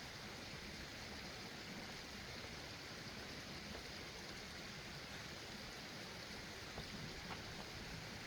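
Faint, steady rushing of a mountain creek.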